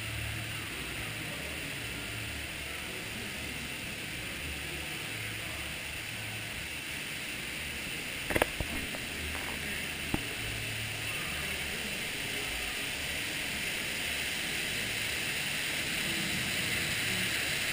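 Steady rush of moving water around a ride boat in a dark water channel, slowly growing louder toward the end. A few sharp knocks come about eight seconds in and one more about two seconds later.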